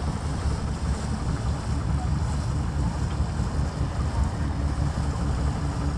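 Wind rumbling and buffeting on the microphone aboard a sailboat under way, with water washing along the hull.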